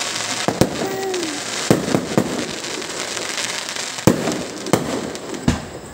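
Aerial fireworks shells bursting: about six sharp bangs spread irregularly across a few seconds, over a continuous crackling hiss from the glittering stars.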